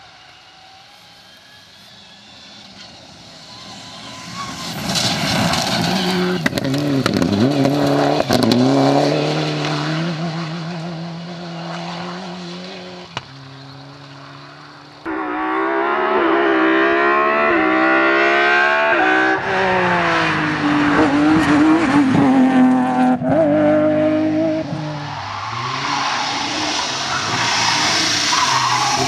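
Rally cars at full throttle on gravel stages. A car approaches and passes loudly, its engine revving up and dropping through gear changes, then fades. About halfway an abrupt cut brings another car revving hard through its gears, and a third car comes up loud near the end.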